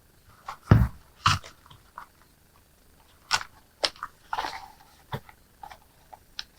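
Plastic clicks and knocks of a 3M respirator filter cover being snapped into place and handled: a dull thump under a second in, then a few scattered sharp clicks and short rustles.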